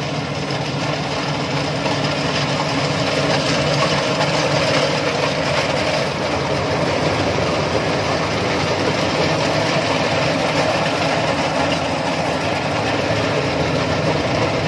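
Rice combine harvester running steadily, its engine and machinery making a loud, continuous noise that grows a little louder about two seconds in.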